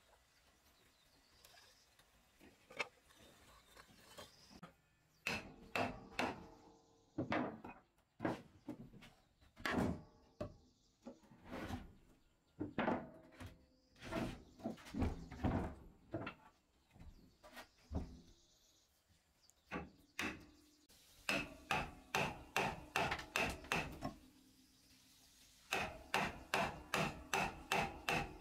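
Hammer blows on a chisel cutting a hole through a thick wooden slab, each strike with a short ring. The strikes come irregularly at first, then in quick runs of about three to four a second near the end.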